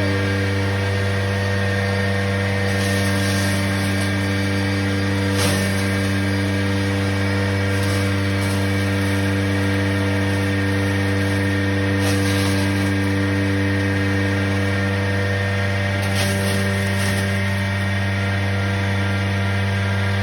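Wood chipper machine running at a steady speed, a loud even hum, with a few brief sharper noises over it.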